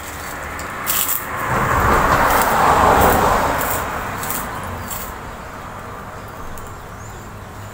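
A vehicle passing by on the road, its noise swelling to a peak about three seconds in and then fading away, with a few light clicks.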